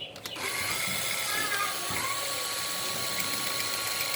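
An electric drill starts about half a second in and runs steadily, driving a sheet-metal shear attachment. It gives a steady whine whose pitch steps up slightly about two seconds in.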